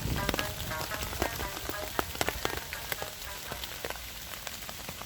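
Rain falling, with many irregular sharp taps of raindrops striking close to the microphone over a steady hiss.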